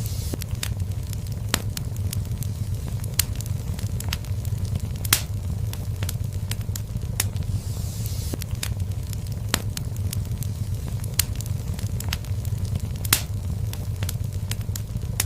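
Wood fire burning in a fireplace: a steady low rumble of flames with irregular crackles and a few sharper pops, and a brief soft hiss about eight seconds in.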